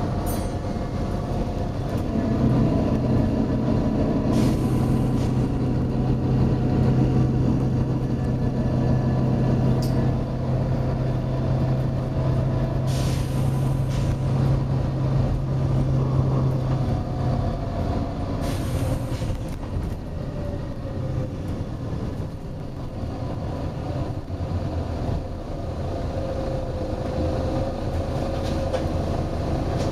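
Volvo B9TL bus running, its engine giving a steady drone that holds strong for about fifteen seconds and then eases. Short bursts of compressed-air hissing come from the bus's air system, three or four times.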